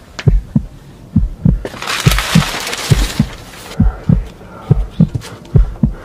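Suspense-track heartbeat: a steady double thump, lub-dub, about once a second. About two seconds in, a hissing burst runs for some two seconds over it.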